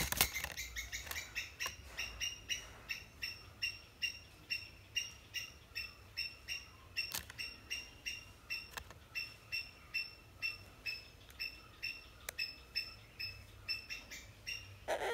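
A short, high chirping call repeated steadily about three times a second, with a few faint sharp clicks in between.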